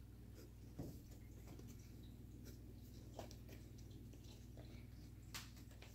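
Near silence: a low steady hum with a few faint, scattered clicks and taps, the clearest about a second in and near the end.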